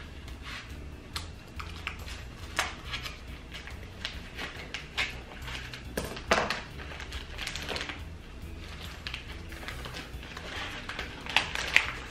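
Kitchen scissors snipping through the plastic wrapper of a chorizo link, and the plastic crinkling as the chorizo is handled and pulled free: irregular sharp clicks and rustles.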